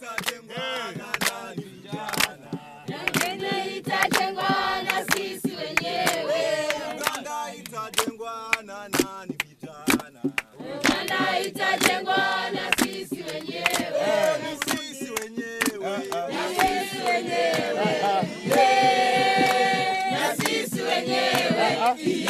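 A group of young men and women singing together in Swahili, a call-and-response song, with sharp regular beats keeping time at about two a second. The singing swells louder near the end.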